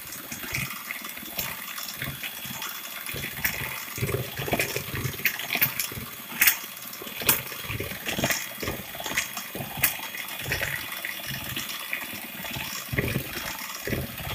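Electric hand mixer running, its beaters whipping stiff buttercream in a bowl: a steady motor hiss with scattered clicks.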